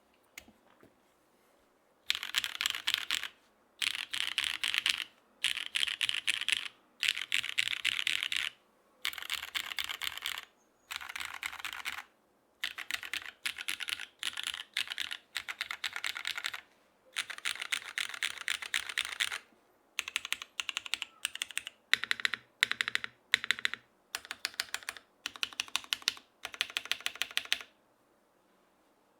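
Mechanical keyboard with linear Cherry HG Black switches, GMK keycaps and an aluminium half plate in a top mount with no foam, typed on fast in runs of a second or two separated by short pauses. Near the end the runs get shorter, with a few sharper single key strikes standing out.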